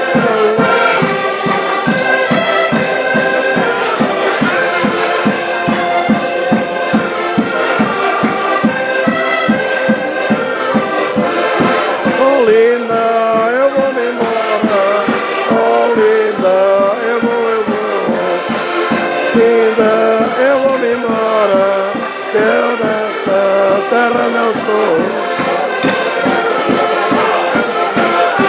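A Portuguese festive street band plays a lively tune as it parades among the tables, with a steady drum beat under the melody.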